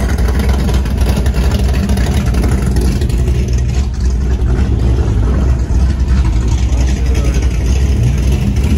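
A car engine idling with a loud, steady low rumble.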